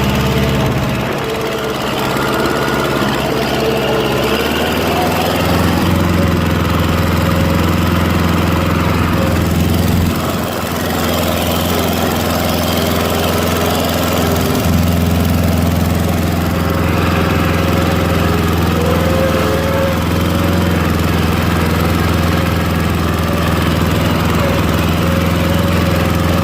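An engine running steadily, its note shifting slightly about five seconds in.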